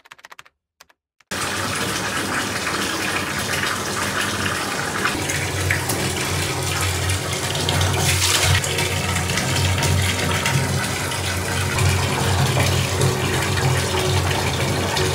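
Steady rush of running water, starting suddenly about a second in and cutting off abruptly at the end.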